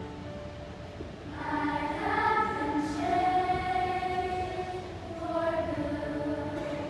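Eighth-grade choir singing long held notes, swelling louder about a second and a half in.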